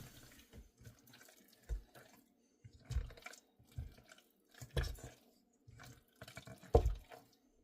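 Pickle dip being stirred by hand in a bowl: irregular wet stirring strokes about once a second, the loudest near the end.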